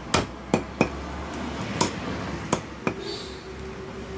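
Heavy meat cleaver chopping duck on a wooden chopping block: six sharp chops in the first three seconds, unevenly spaced.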